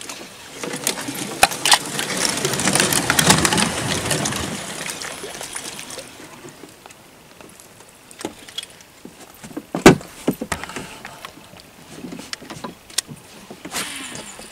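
Casting and reeling from a small wooden boat. A few seconds of rustling noise with clicks comes first, then scattered knocks on the boat and tackle, the loudest a single sharp knock about ten seconds in.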